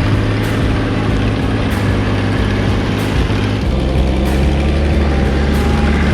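Four-wheel-drive Power Horse farm tractor's engine running steadily and loud; its speed drops about three and a half seconds in.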